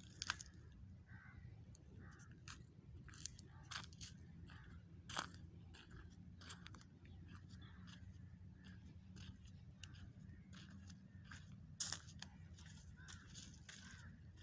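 Faint, irregular crunches and clicks of dry leaves and twigs, a few sharper ones about five and twelve seconds in, over a low steady hum.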